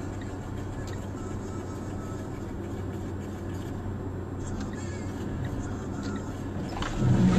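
Steady engine and road rumble of a car driving, heard from inside the cabin, with a low hum throughout. Near the end a louder, rougher noise starts.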